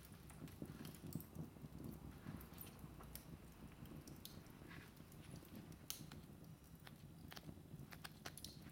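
Wood fire crackling in a fireplace: faint, irregular pops and snaps from the burning logs.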